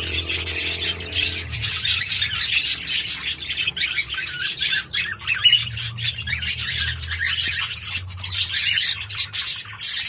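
Budgerigar warbling chatter: a continuous, rapid stream of chirps, clicks and short squawks.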